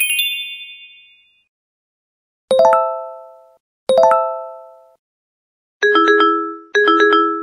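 BlackBerry Messenger notification tones played as short piano phrases. A high bright chime rings at the start, then two identical quick rising note groups follow about a second and a half apart, then two quick flourishes about a second apart near the end, each ringing and fading.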